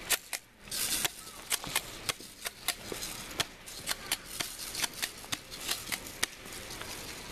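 Airsoft guns firing: an irregular run of sharp clicks and pops, a few a second.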